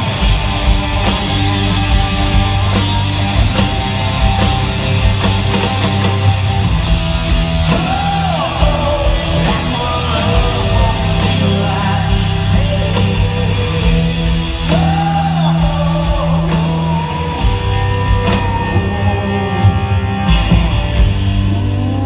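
Rock band playing live and loud in an arena: a steady drum beat with cymbals, bass, and distorted electric guitar with bending lead lines.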